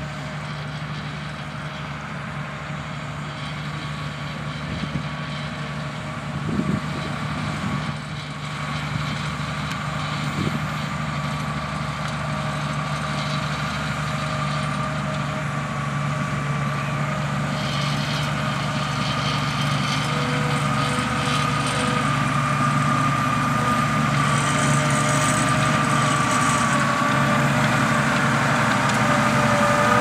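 New Holland T7.270 tractor's six-cylinder diesel engine running steadily under load while pulling a reversible plough through the soil, growing louder as it comes closer.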